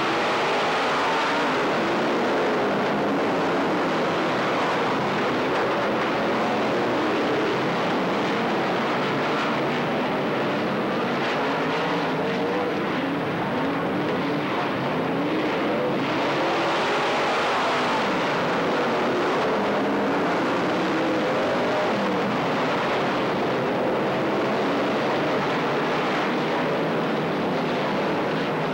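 A pack of race car engines running at speed around an oval track, with several engine notes overlapping and rising and falling as the cars circle.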